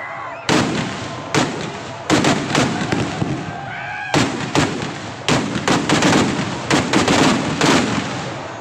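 Firecrackers bursting in a rapid, irregular string of loud bangs, some landing close together, over a constant background din.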